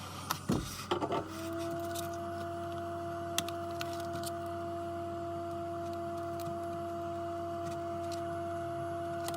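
A few clicks and knocks, then a steady hum starts about a second in and holds, with an occasional faint click over it. This fits a repair machine being switched on and running.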